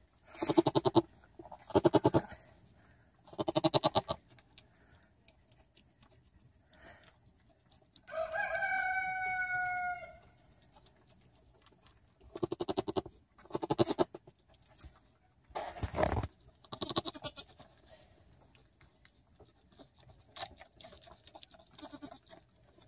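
Pygmy goats bleating in short calls of about a second: three near the start and about four more in the second half. A rooster crows once, a single two-second crow about eight seconds in.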